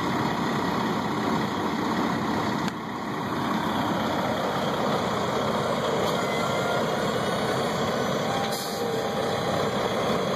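Semi-truck diesel engine idling close by, a steady, fairly loud running sound that dips briefly about three seconds in.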